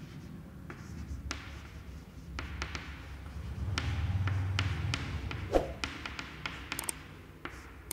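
Chalk on a chalkboard while words are written: a string of light, irregular taps and short scrapes.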